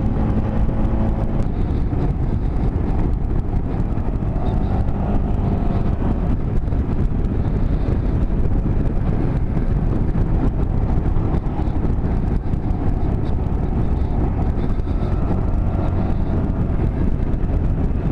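Motorcycle engine running at road speed, with wind rushing over the microphone; the engine note rises and falls a little as the bike takes the curves.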